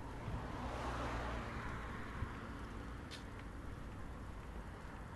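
Wind and traffic noise while riding a bicycle beside a road, with a rush that swells and fades about a second in and one sharp click about three seconds in.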